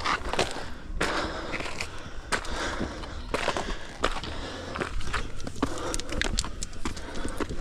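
Hiking boots scraping and crunching on rock and loose gravel during a steep climb, with irregular clicks of steps and shifting stones.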